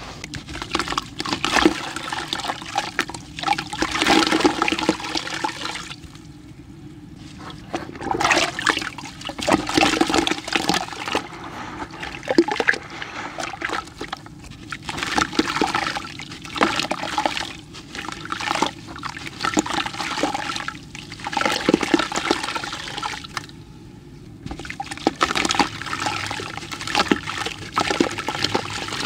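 Hands squishing wet, sandy mud and sloshing muddy water in a bucket, with a grey sandy block crumbled into the water near the end. The sound comes in irregular bursts, with a few short pauses.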